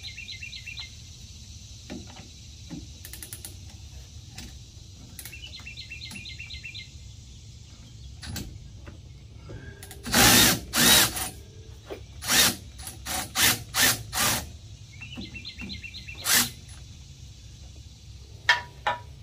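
Cordless impact wrench run in about eight short loud bursts, starting about halfway through, breaking loose the jam nut that locks the tie rod adjuster.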